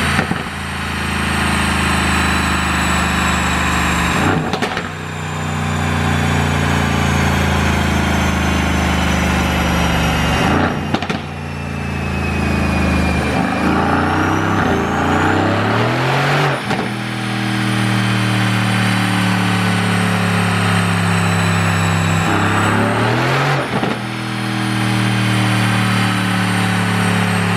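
2019 Aston Martin V8 Vantage's twin-turbo 4.0-litre V8 running hard, its revs climbing and holding several times. About five sharp exhaust pops or bangs break in, each followed by a short dip, as the pop-and-bang tune intends.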